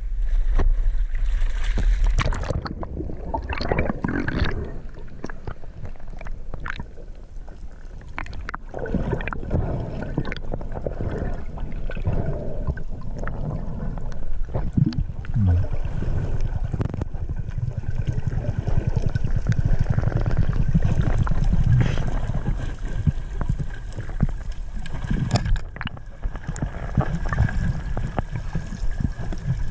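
Seawater gurgling and sloshing around the microphone while freediving, with scattered knocks and splashes.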